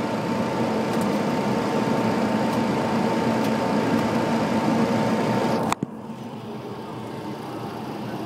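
Boeing 737 flight-deck noise on approach: a steady rush of airflow and engine noise with a thin, steady whine running through it. It cuts off abruptly about six seconds in to a quieter, even rush.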